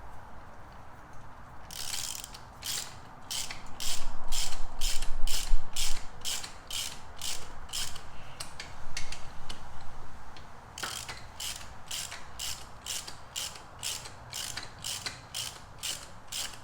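Hand ratchet clicking steadily, about two and a half clicks a second, as it drives a frame-slider mounting bolt into the motorcycle frame, with a short pause about ten seconds in before the clicking resumes.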